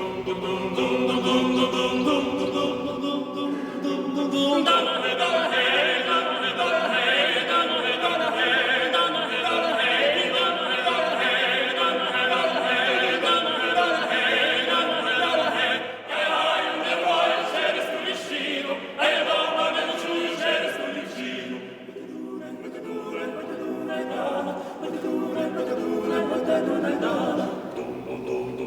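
A choir singing in long held chords that change every few seconds, softer for a few seconds past the middle.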